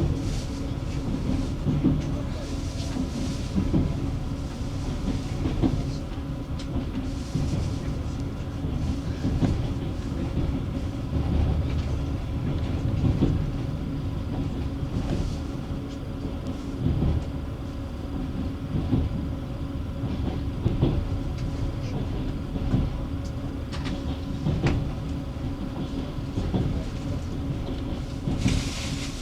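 Passenger train wheels clacking over the rail joints at irregular intervals above a steady rolling rumble, heard from inside the carriage.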